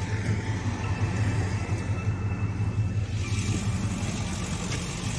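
Ford F-250 Super Duty's Power Stroke V8 turbodiesel idling: a steady low rumble.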